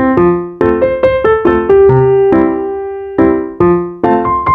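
Background music: light piano or keyboard playing a simple melody of separate notes.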